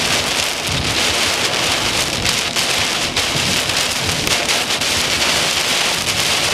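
Wind-driven rain from a straight-line windstorm hitting a vehicle, a dense steady hiss with many fine patters. Gusts of wind buffet underneath with an uneven low rumble.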